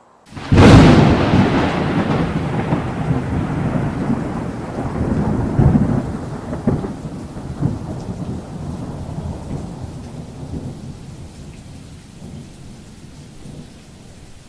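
Thunderclap: a sudden sharp crack about half a second in, then a long rolling rumble that slowly fades before it cuts off abruptly.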